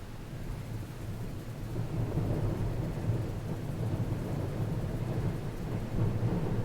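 Wind buffeting the microphone: a low, fluttering rumble that grows a little louder about two seconds in.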